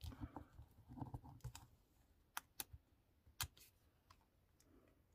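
Faint handling of a small paper cut-out and a scrap of card: soft rustling over the first two seconds, then three sharp little clicks in the middle.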